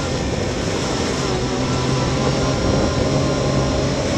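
Yamaha YXZ1000R side-by-side's three-cylinder engine running and picking up speed along a dirt trail, over a steady rush of tyre and wind noise.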